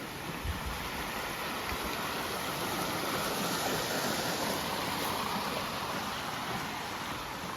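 Rushing water of a creek or waterfall, a steady hiss that grows a little louder through the middle and eases off again.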